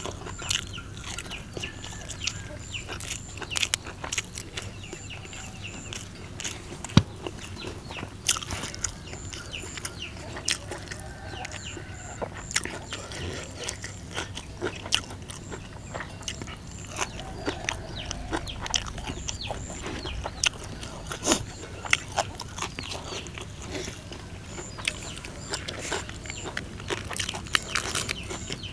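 Close-up eating sounds: chewing and crunching, with frequent sharp clicks and taps of fingers and a spoon on a metal food tray. Crisp cabbage leaves are torn near the end.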